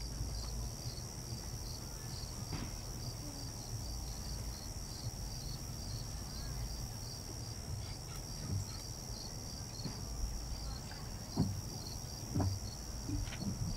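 Insects chirping in a steady, evenly pulsing chorus, about two to three pulses a second, over a low rumble. A few faint knocks come in the last few seconds.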